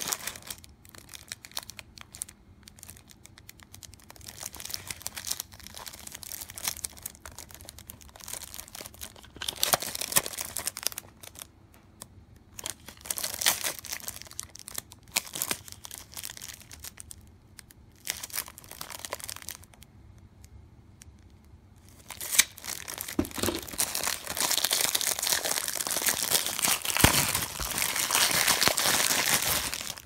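Clear plastic packaging crinkling and rustling in irregular bursts as the bagged cleaning cassette is handled. The crinkling turns louder and near-continuous for the last eight seconds or so.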